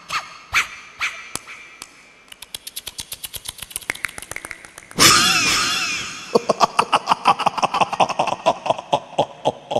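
Live band's percussion playing a song intro: scattered hits, then a quickening run of strikes, a loud cymbal-like crash about five seconds in that rings and fades over a second, and after it a fast, regular drum beat.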